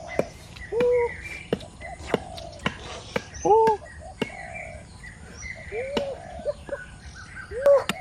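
Birds calling: short arched chirps, the loudest about a second and three and a half seconds in, over a steady chirring background. Sharp clicks or knocks are scattered between them.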